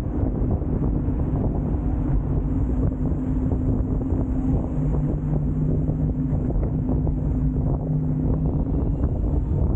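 Wind rushing over the camera microphone during an electric scooter ride, with a steady low hum underneath.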